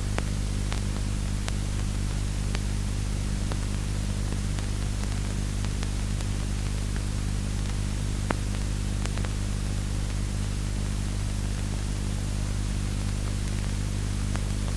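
A steady low hum with a constant hiss over it and a few faint scattered clicks.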